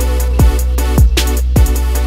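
Background music with a drum-machine beat: deep kick drums that drop in pitch, a little under two a second, with hi-hats over a held note.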